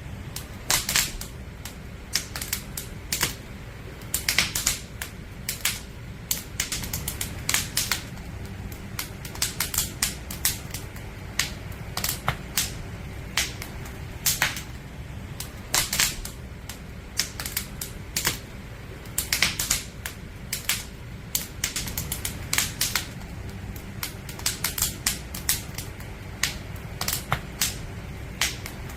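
Burning firewood in a campfire crackling, with irregular sharp pops and snaps over a steady low rumble.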